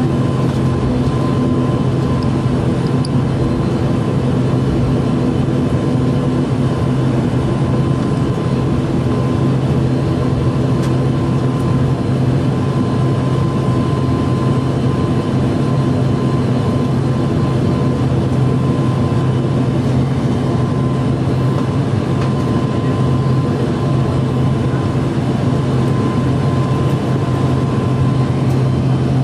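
ATR 72-500's Pratt & Whitney PW127 turboprop engines and propellers heard from inside the cabin while taxiing: a steady low drone with a thin steady hum above it, unchanging in level.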